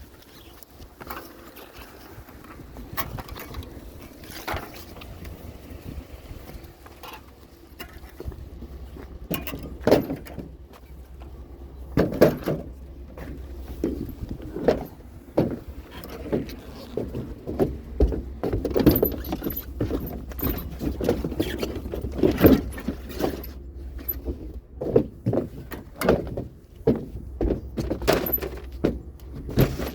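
Scrap metal pipe being grabbed and handled: a run of irregular clanks and knocks that gets busier about ten seconds in, over a steady low rumble.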